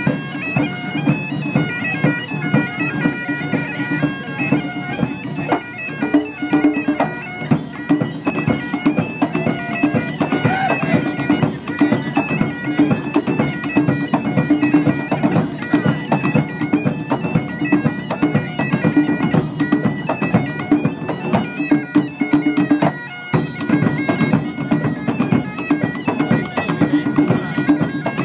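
Bagpipes playing a melody over their steady drone, with a group of drummers beating large drums in a driving rhythm underneath.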